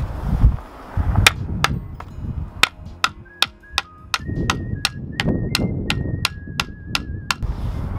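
Axe used as a hammer, driving a wooden post into the ground: a run of sharp knocks on the post, a few at first and then about four a second through the middle.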